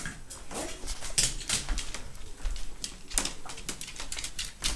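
Irregular sharp clicks and taps of a beagle's nails on a hardwood floor as it moves about.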